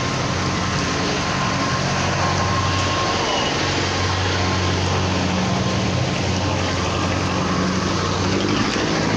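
Motor vehicle engines running close by, with a steady wash of noise behind them; the engine note shifts in pitch a few seconds in.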